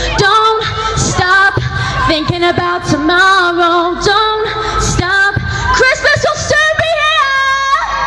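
A woman singing live into a handheld microphone, with several long held notes.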